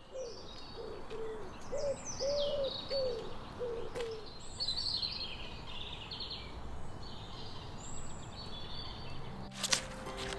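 Birdsong: high chirping and twittering calls throughout, over a low cooing phrase of about eight notes in the first four seconds. Music starts near the end.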